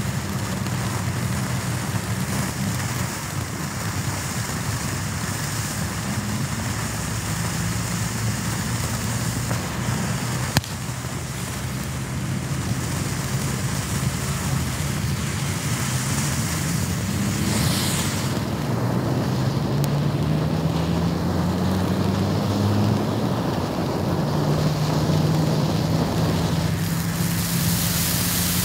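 Black Cat 'Shut Up!' low-noise firework fountain spraying sparks with a steady hiss, with one sharp pop about ten seconds in. A low droning hum runs underneath, its pitch drifting and rising for a few seconds past the middle.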